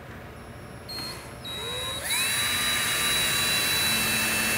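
Power drill-driver driving a screw through a wooden board: the motor starts with a short, slow spin, then winds up in a rising whine and runs steadily as the screw goes in.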